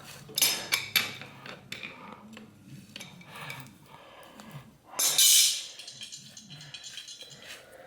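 Light metallic clinks and knocks of bicycle bottom bracket parts being handled as the adjustable cup is worked out, with one louder scrape about five seconds in.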